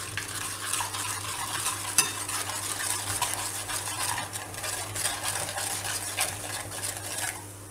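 Metal ladle stirring gram flour into hot ghee in a metal pan: continuous scraping against the pan with many small clicks and one sharper knock about two seconds in. The stirring stops abruptly just before the end.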